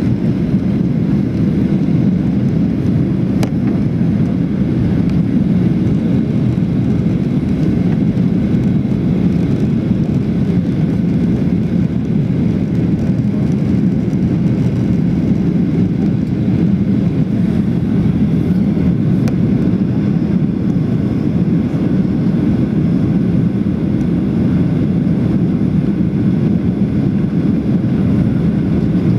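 Steady, unbroken cabin noise inside a Boeing 737-700 airliner: engine and airflow sound heard from a window seat over the wing during the approach, with flaps extended.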